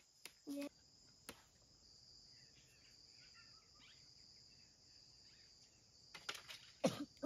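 Insects keeping up a steady, high-pitched drone, with faint chirps in the middle and a few short clicks and knocks near the end, the loudest just before the end.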